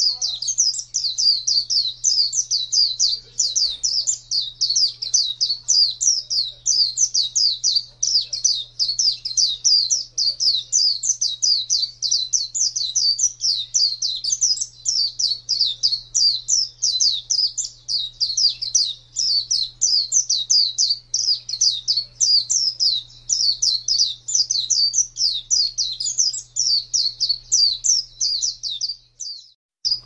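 White-eye (pleci, Zosterops) song: a long, fast, unbroken run of high, quick chirps, each note slurring downward. It breaks off briefly near the end.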